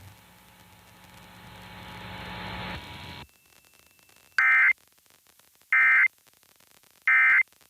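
Emergency Alert System end-of-message data bursts: three short, loud bursts of high warbling digital tone, about a second apart, marking the end of the alert. Before them, a faint hiss with a low hum swells for about three seconds and cuts off.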